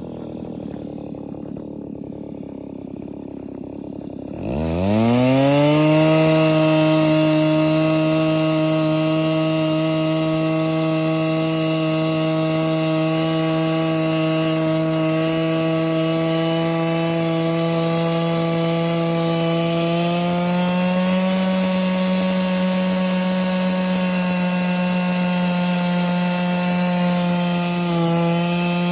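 Power ice auger motor spinning up to full speed about four seconds in, then running steadily at a high, even pitch while it bores through the lake ice. The pitch steps up a little partway through and dips briefly near the end.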